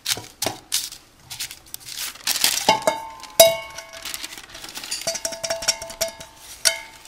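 Wax paper crinkling as it is pressed into a stainless steel cake pan, then several metal knocks from about three seconds in, each leaving the steel cookware ringing with a clear pitch; the loudest knock comes at about three and a half seconds.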